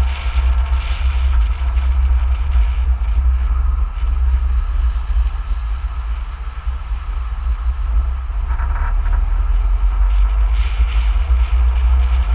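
A vehicle travelling along a road, heard through a mounted camera's microphone as a steady, heavy low rumble of wind and road noise, with a brief rise in hiss about eight and a half seconds in.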